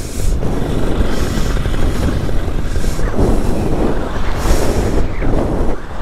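Strong wind buffeting the microphone of a paramotor in flight: a loud, continuous rush that surges in gusts, with brighter hissing swells every second or two, over the steady noise of the paramotor's engine. The gusting comes from severe storm turbulence.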